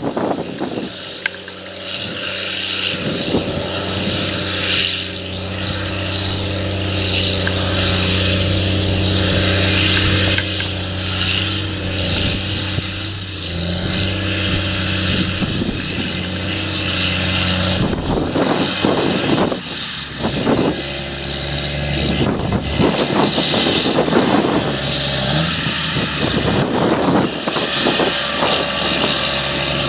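An engine running steadily, its pitch shifting to a new level a few times.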